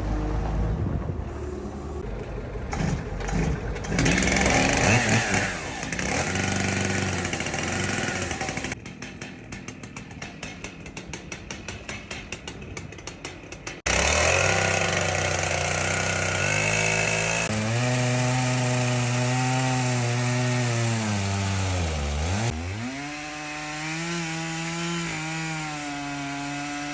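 Chainsaw working in wood: first a rough, noisy cutting sound, then a quieter run of rapid even pulses. About halfway through it abruptly gives way to a loud, steady engine note whose pitch dips sharply for a moment about 22 seconds in, as if the saw bogs down under load, and then recovers.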